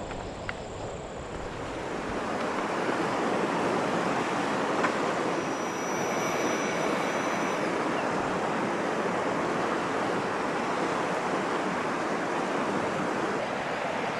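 Rushing water of a river running high after rain: a steady, full rush that swells about two seconds in and then holds.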